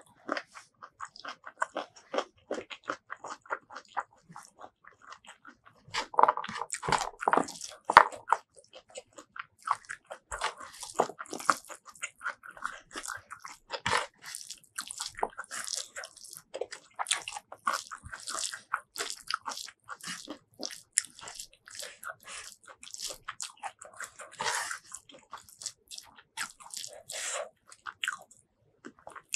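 Close-miked eating sounds: fingers squishing and kneading rice mixed with wet tomato fish-paste curry and stink beans on a wooden board, and moist crunchy chewing. A dense run of short clicks and crackles, loudest about six to eight seconds in.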